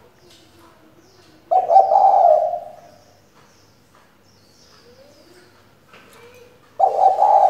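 Hen spotted dove cooing: two loud coo phrases of about a second each, the first about a second and a half in and the second near the end.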